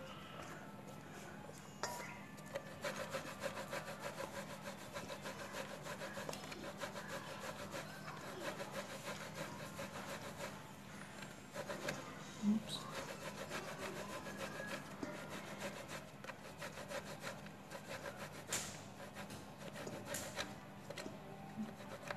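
Ube-flavoured rice flour dough for puto bumbong being rubbed against a metal box grater into a stainless steel bowl: fairly faint, rapid, repeated rasping strokes. There is one sharper knock about halfway through.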